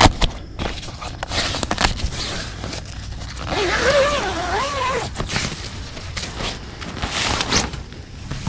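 Nylon tent fabric and a stuff sack rustling and crinkling as they are handled, with scattered knocks and bumps. Around the middle, a brief wavering tone sounds for about a second and a half.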